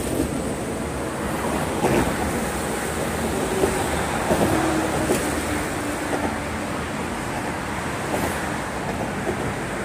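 Steady wind and road-traffic noise, with a few faint short tones in the middle.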